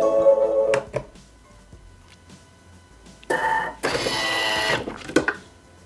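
A Bimby TM6 kitchen machine running its blade motor at low speed to stir and heat cream and chocolate, a steady pitched whir for about a second. A louder, noisier mechanical sound follows about three seconds in.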